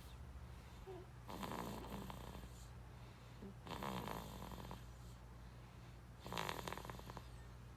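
An 8-month-old baby snoring in her sleep: three snores about two and a half seconds apart, over a steady low hum.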